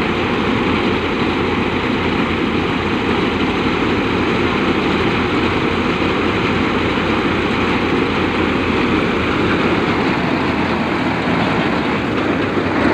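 Eicher tractor-mounted mini harvester running steadily at work, the tractor engine and threshing machinery making a continuous mechanical din while grain streams out of its unloading spout.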